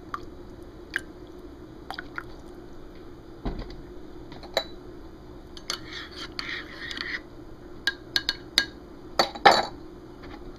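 A spoon stirring coffee in a ceramic mug, clinking against the inside of the mug. The clinks come singly at first, then in a busy run of stirring about six to seven seconds in, and end with a few sharp clinks, the loudest, near the end.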